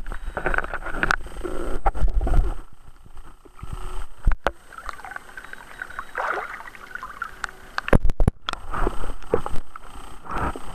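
Lake water splashing and sloshing around a camera that moves in and out of the water, muffled and gurgling while submerged. The sound comes in irregular surges with a heavy low rumble, and there are a couple of sharp knocks as the camera is handled.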